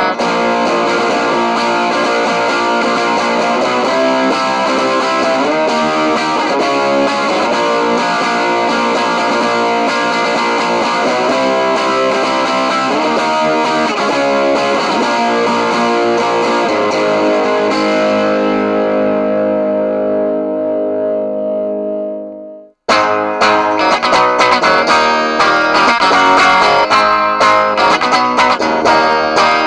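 Squier Sonic Mustang HH electric guitar played through distortion in a tone demo. About two-thirds of the way through, a held chord rings and dies away, and after a short break a new choppy riff begins.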